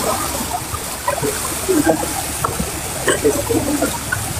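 Muddy floodwater rushing steadily, with faint scattered voices.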